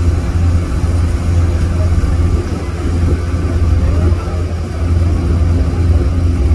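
Car ferry's engines running steadily at cruising speed, a loud, even, deep drone.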